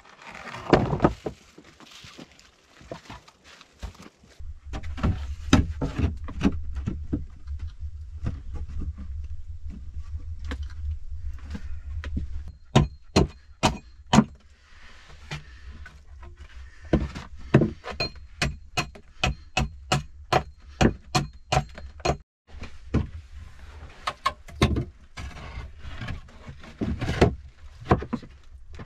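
Rough-sawn wooden boards clattering and knocking as they are lifted, carried and stood against a log wall, with runs of sharp knocks. A low steady rumble lies underneath through the middle stretch.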